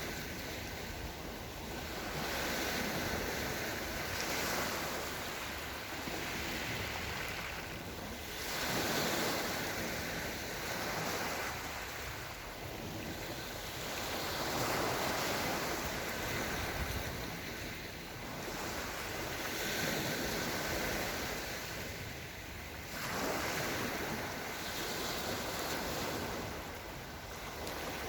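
Small Black Sea waves washing onto the shore, the surf swelling and easing every few seconds.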